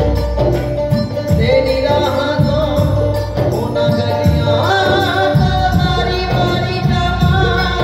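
Live devotional bhajan: a man sings long held notes over accompaniment, with percussion keeping a steady beat.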